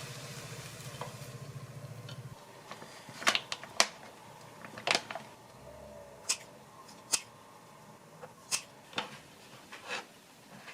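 A low steady hum cuts off about two seconds in. Then about a dozen sharp clicks and clinks follow at uneven intervals, from utensils and dishes being handled in a small kitchen.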